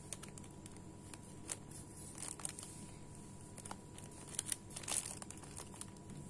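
Clear plastic bags crinkling and crackling as hands gather their necks and tie ribbon around them. The crackles come irregularly, thickest about two seconds in and again between four and five seconds.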